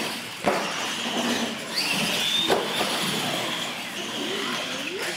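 Several R/C monster trucks racing on a concrete floor: motors whining and tyres running, with a rising whine about two seconds in. Sharp knocks about half a second and two and a half seconds in sound like trucks hitting or landing off the ramps.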